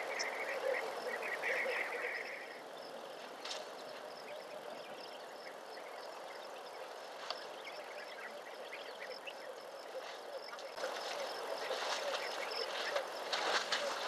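Outdoor bush ambience: insects keep up a steady high drone, with a run of chirping calls over the first couple of seconds. From about eleven seconds in, scattered clicks and rustles join it and grow denser near the end.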